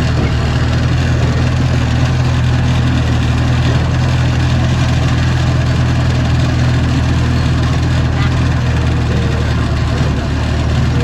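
Heavy diesel engine of earthmoving equipment running steadily at an even speed, a low constant hum.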